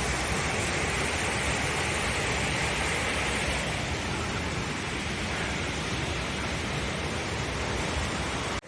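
Waterfall rushing with a steady, even roar, cutting off abruptly near the end.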